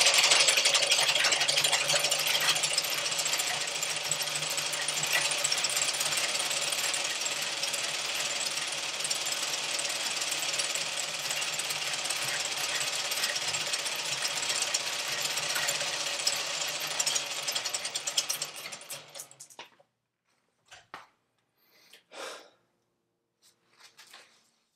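Foot-pedalled W.F. & John Barnes No. 5 velocipede lathe running, its treadle cranks, flywheel, leather belt and spindle making a fast, steady mechanical clatter. The clatter fades out about nineteen seconds in as the pedalling stops, and a few faint knocks follow near the end.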